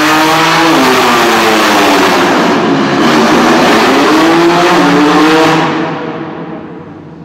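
High-performance supercar engine accelerating hard, its pitch climbing and dropping back several times as it shifts up through the gears, then fading as the car pulls away about five and a half seconds in.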